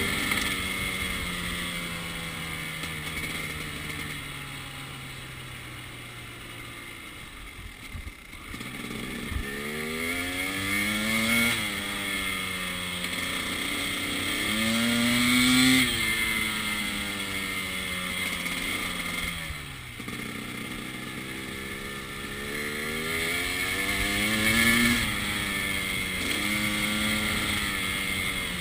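KTM 300 XC-W two-stroke single-cylinder dirt bike engine under way on a trail, revving up and falling back again several times as the rider accelerates and rolls off; the loudest pulls come about two-thirds of the way through and again near the end.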